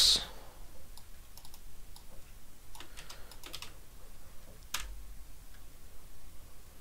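Typing on a computer keyboard: irregular, scattered keystrokes, with one louder key press just before the five-second mark.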